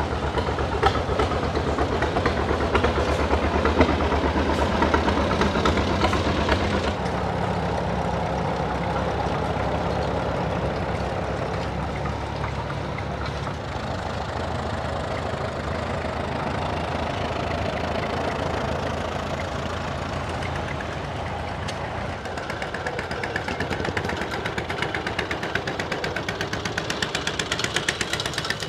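Antique farm tractor engine running with a steady, rapid firing beat. The sound changes abruptly about seven seconds in, and a quicker engine beat grows louder near the end.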